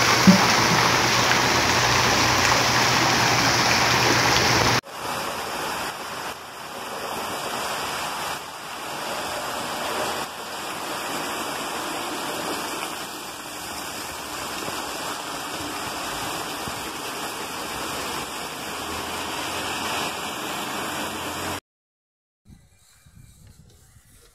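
Floodwater rushing along a street in a loud, steady rush. About five seconds in it cuts to a quieter, even hiss of rain on a wet street, which stops abruptly a few seconds before the end.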